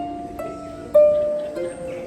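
Background music: a gentle melody of plucked string notes, each struck and left to ring, a new note every half second or so.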